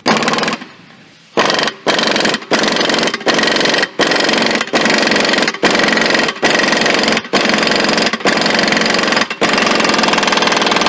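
Impact wrench hammering on a ball joint press screw in a run of bursts of about a second each with short breaks between, pressing a new ball joint into a 2003 Ford F-350 Super Duty steering knuckle.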